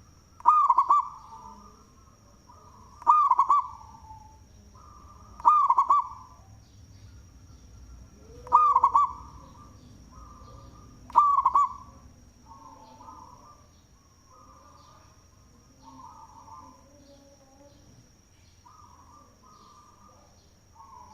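Local zebra dove (perkutut) cooing in full song: five loud coos spaced about two and a half seconds apart, then softer cooing phrases for the rest of the time. A steady high thin whine runs underneath.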